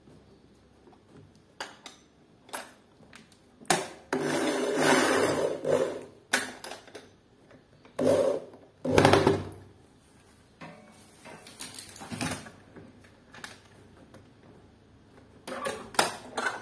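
Makita electric drill driving screws into a safety latch on an aluminium door: a run of about two seconds, then two short bursts. Near the end come sharp metallic clicks as the latch is handled.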